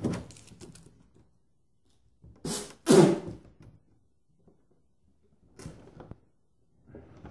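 Clear plastic blister packaging crackling and crinkling as it is handled, with two short, loud crackles half a second apart about two and a half seconds in, and a fainter rustle later.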